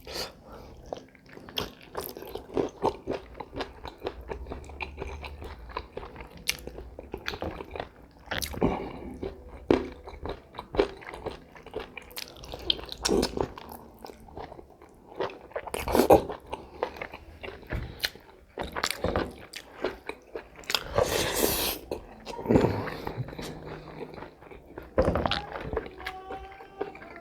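A person eating chicken close to the microphone: biting and chewing, with sharp, irregular bite clicks and mouth sounds, and a few louder bites.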